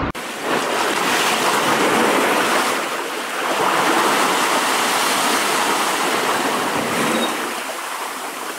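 Sea water washing and lapping close by, a steady rushing hiss that swells and eases in slow surges.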